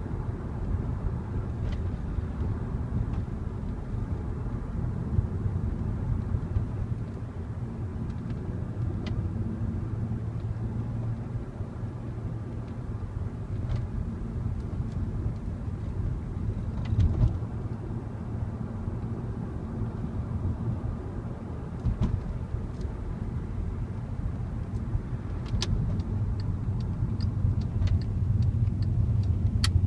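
Volkswagen Passat R36's 3.6-litre VR6 engine running steadily while driving, a low drone under road noise. A quick regular ticking, about two to three ticks a second, starts near the end.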